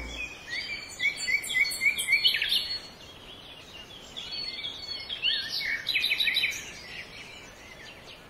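Bird chirping: quick runs of short, high chirps, one about a second in and another around five seconds in.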